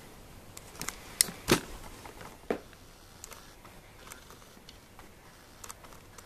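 A few light clicks and taps over faint hiss, the loudest about a second and a half in.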